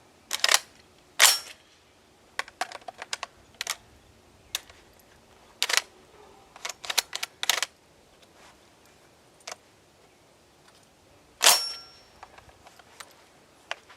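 Sharp plastic-and-metal clicks of 12-gauge shotgun shells being pushed one by one into the detachable box magazine of a Centurion BP12 shotgun, with a louder clack about a second in and another near the end.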